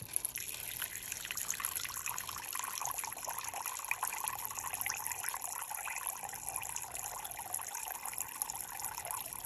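A thin, steady stream of water from a sprayer bottle's nozzle trickling onto soil substrate, soaking it so the water seeps down.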